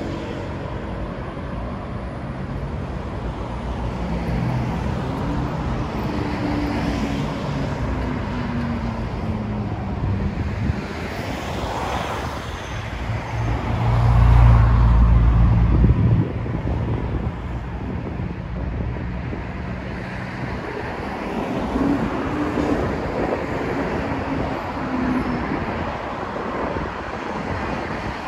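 City road traffic: cars and buses passing on a multi-lane road, their engine notes gliding down as they go by. A loud low rumble lasts a couple of seconds about halfway through.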